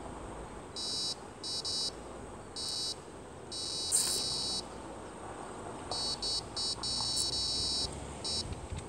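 Electronic carp bite alarm beeping in irregular stop-start bursts that come faster about six seconds in: line is being pulled off, a fish on a run. A sharp click sounds about four seconds in.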